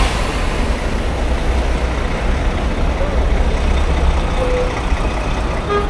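Steady noise of heavy, gridlocked city traffic (cars, SUVs and buses), with a strong low rumble, heard from a bicycle riding between the vehicles.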